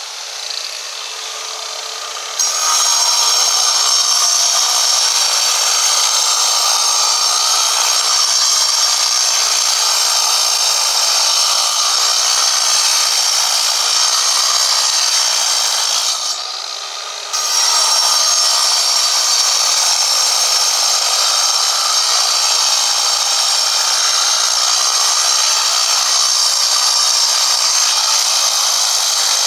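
Angle grinder cutting into a white stone block, a loud, high grinding noise. It is quieter for the first two seconds, then bites in loudly, eases off for about a second near the middle, and cuts again.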